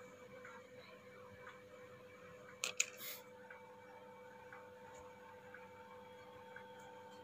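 Faint steady electrical hum, broken by a brief clatter of two or three sharp clicks a little under three seconds in.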